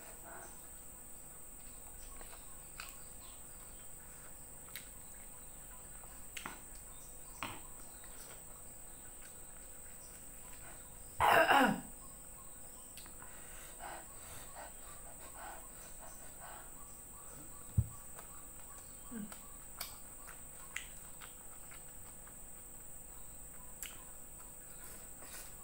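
Quiet sounds of eating with the hands: faint scattered clicks and mouth noises over a steady faint hiss. About eleven seconds in, one short loud cough, and a single low knock a few seconds later.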